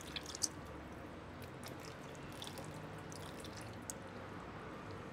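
Citric acid solution trickling faintly from a small glass jar into thick soap batter at trace, with a few small drips and ticks.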